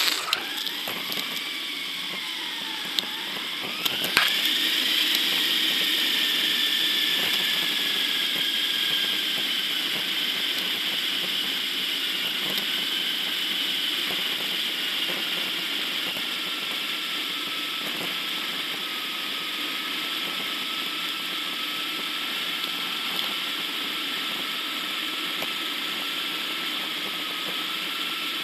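Bicycle riding noise picked up by a bike-mounted action camera: steady rushing tyre and wind noise with a whining tone over it. The whine dips and rises at first, jumps up at a sharp click about four seconds in, then slowly falls in pitch and holds steady.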